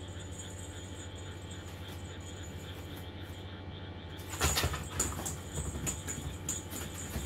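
A feathered cat wand toy swished and fluttered quickly through the air, starting about four seconds in, as a cat swats and pounces at it, with sharp knocks and rustles. A steady hum from a small electric fan runs underneath.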